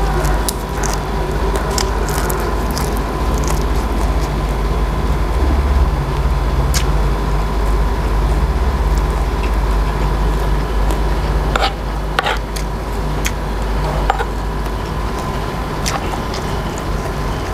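Close-miked chewing and wet mouth sounds of a man eating raw beef salad with crisp herbs, with a few sharp clicks and taps, over a steady low hum.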